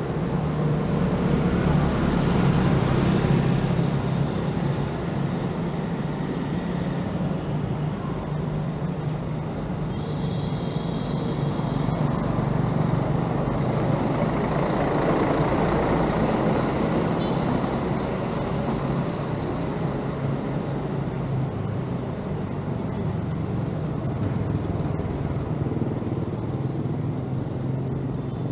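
Street traffic noise, continuous and fairly steady, with a bus passing close by about halfway through.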